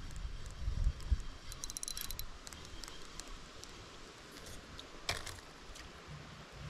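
A quick run of light clicks about two seconds in, then a single sharper click about five seconds in, over a low rumble in the first second.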